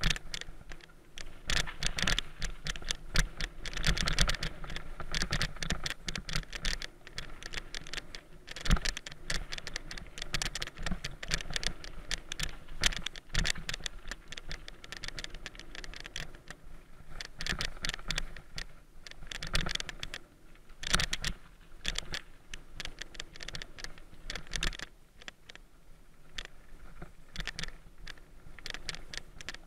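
Mountain bike clattering down dirt singletrack: rapid, irregular rattling and clicking from the chain, frame and tyres over stones and roots, a little quieter in the last few seconds.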